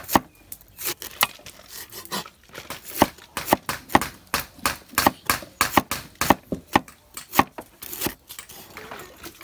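Steel cleaver chopping cabbage into shreds on a wooden chopping board: a fast, slightly uneven run of sharp knocks, about three a second.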